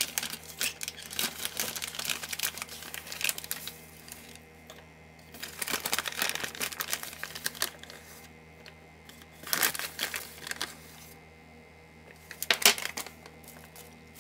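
Plastic and paper bags crinkling as they are handled, in several short spells, while cornmeal is poured from its paper bag into a glass measuring cup.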